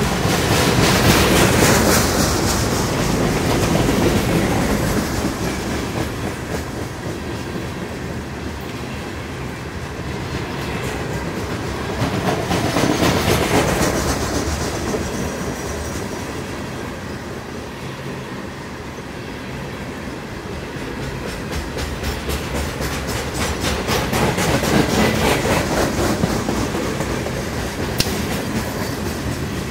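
Coal train's hopper cars rolling past: steady rumble of steel wheels on rail with a clickety-clack over the rail joints, swelling louder three times.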